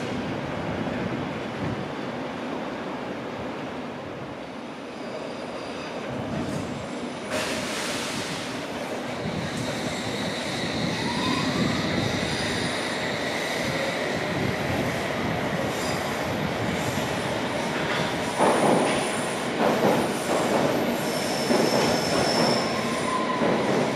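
London Underground S-stock train running over points and curved track, its wheels squealing in thin high tones that waver and glide over the train's steady rumble. In the last few seconds there is a run of sharp clacks as wheels cross rail joints and points.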